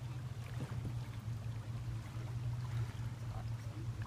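River water lapping and trickling around a canoe, with a steady low hum underneath.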